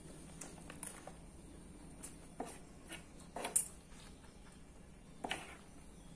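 Scattered eating sounds: a metal spoon and fork scraping and tapping as they gather fried rice and noodles off a paper sheet, with chewing between. The sounds are short and spaced out, and the loudest comes about three and a half seconds in.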